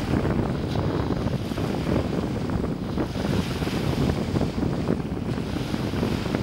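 Wind buffeting the microphone over small waves breaking and washing at the shoreline, a steady rushing noise with no let-up.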